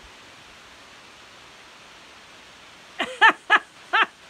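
Steady background hiss, then a woman laughing in short repeated bursts starting about three seconds in.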